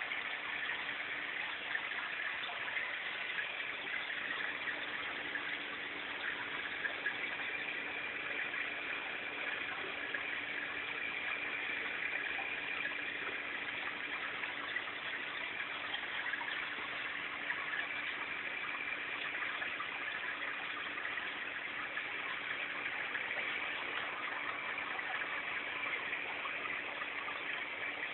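Water circulating in a 55-gallon reef aquarium: an even, steady rush of moving water with a low steady hum underneath.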